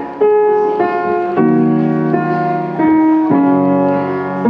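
Yamaha upright piano being played by hand: a slow series of chords, a new one struck about every half second to second, each left to ring.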